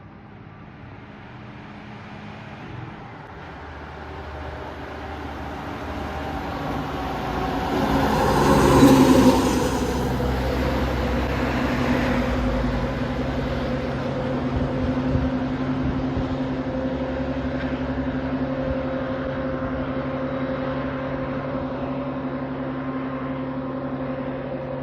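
A vehicle engine grows louder, peaks about nine seconds in with a rush of noise, then keeps running with a steady low hum.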